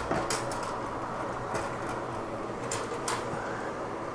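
Broan-Nutone bathroom exhaust fan running quietly on its newly fitted motor, a steady low hum. A few sharp clicks come over it as the plastic grille and its wire mounting springs are handled.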